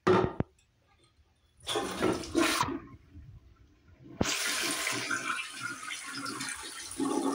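A 2004 Crane Plumbing Galaxy toilet flushing: a click about four seconds in, then a steady rush of water swirling down the bowl. Before it there is a short sharp sound at the very start and a louder noise lasting about a second.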